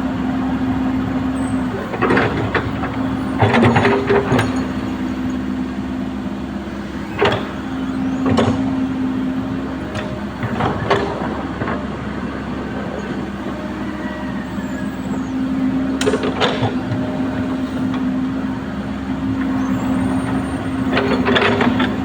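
Komatsu hydraulic excavator's diesel engine running at a steady speed, with sharp metallic clanks and knocks every few seconds at irregular intervals.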